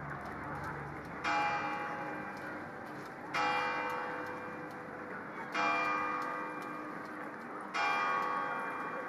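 A bell tolling: four evenly spaced strokes about two seconds apart, each ringing with many overtones and fading before the next.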